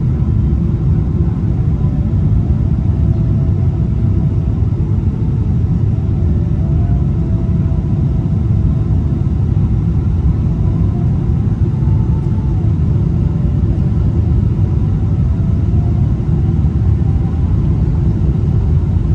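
Steady, loud low rumble of an airliner cabin in flight: jet engine and airflow noise heard from a window seat during the descent toward landing.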